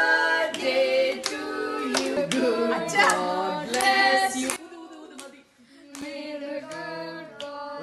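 A group of children and adults singing a birthday song together, with hand claps mixed in. About four and a half seconds in the singing drops away briefly, then carries on more quietly.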